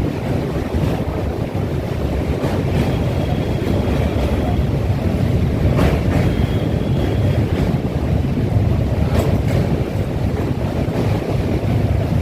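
Wind buffeting the microphone, a steady low rumble, over the rush of the swollen Ganga's floodwater.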